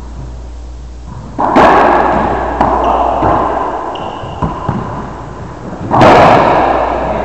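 Racquetball shots in an enclosed court: two loud bangs of the ball being struck and slamming into the walls, about a second and a half in and again near the end, each ringing out in the court's long echo, with a few lighter knocks between.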